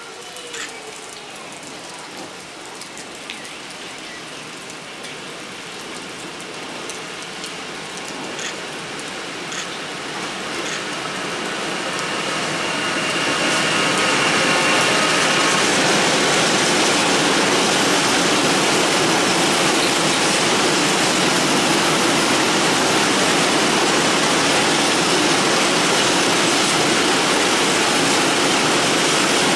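Freight train hauled by a Siemens Class 189 electric locomotive, with a long string of open coal wagons, approaching and passing. The rumble and wheel noise build over about the first fourteen seconds, then hold loud and steady as the wagons roll by. Rain patters throughout.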